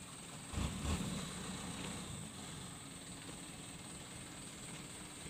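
Distant vehicle engines running steadily, with a brief louder low rumble about half a second in.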